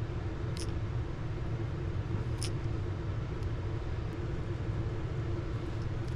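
A steady low rumble with a faint hum. Two faint ticks come about half a second and two and a half seconds in, while a hobby knife picks masking tape off a plastic crankbait.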